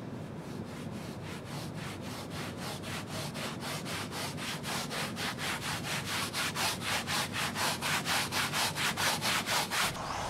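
A stiff brush scrubbing a hard floor in quick back-and-forth strokes, about five a second, that grow louder and stop abruptly near the end.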